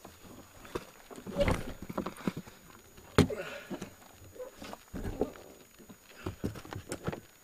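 Footsteps on a wet, muddy trail: an uneven run of heavy steps and thuds, with a sharper knock about three seconds in.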